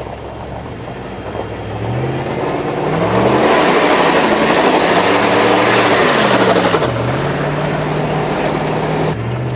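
Dodge Durango accelerating hard. The engine's pitch climbs from about two seconds in, drops at a gear shift around seven seconds, then holds steady, over loud road and wind noise.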